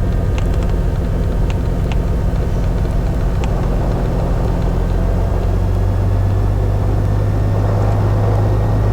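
Beechcraft Bonanza's piston engine and propeller running in a steady low drone while taxiing, the drone growing stronger about five seconds in.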